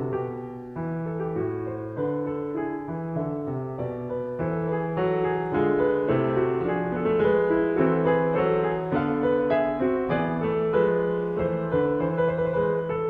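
Piano music: a continuous flow of melody notes over sustained chords.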